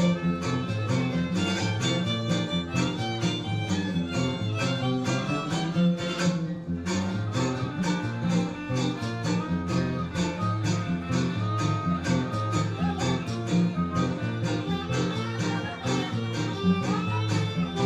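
Polka played by a string trio: a violin carrying the melody over steadily strummed guitars in a quick, even rhythm.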